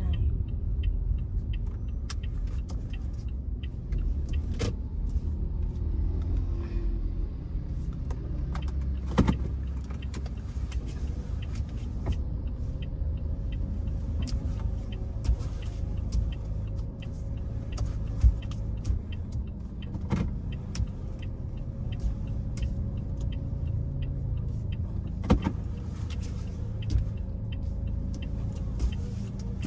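Car cabin noise while driving: a steady low rumble of engine and tyres, broken by a few sharp clicks or knocks.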